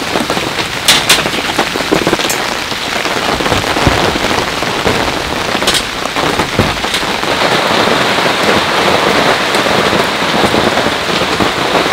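Heavy rain falling steadily in a downpour, with a few short sharp clicks in the first half.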